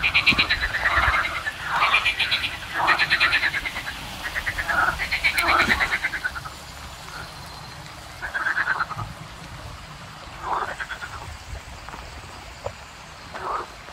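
Frogs croaking in a pond, one rattling pulsed call after another. The calls come thick and loud at first and grow sparser and fainter after about six seconds.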